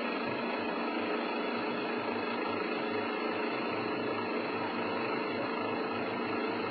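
Steady mechanical drone with an even hiss, engine noise running without change.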